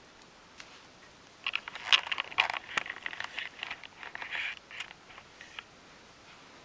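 Hands handling small craft pieces at a workbench: light rustling and scratching with a few small clicks in short clusters, the sharpest click about two seconds in.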